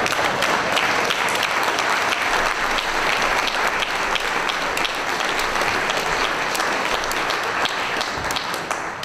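Audience applauding, a dense patter of many hands clapping that starts to die away near the end.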